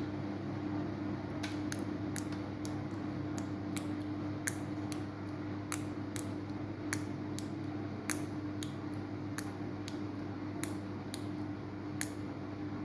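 Samsung washing machine running with a steady motor hum, while light, sharp clicks tick irregularly about twice a second.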